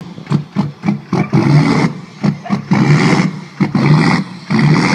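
Straight-piped Ram diesel pickup free-revving hard: runs of quick throttle blips, about three a second, alternating with revs held for roughly half a second, three times over. The truck is rolling coal, pouring out thick black smoke with each stab of throttle.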